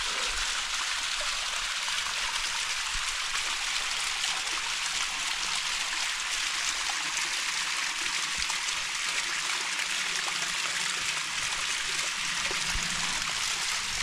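Small waterfall trickling down a rock face and splashing into a shallow pool: a steady, even rush of falling water.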